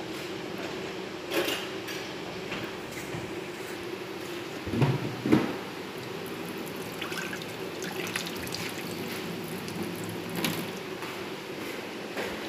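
Water dripping and sloshing as soaked rice noodles are lifted out of a stainless steel pot of water. There are two louder thumps about five seconds in, over a steady low hum.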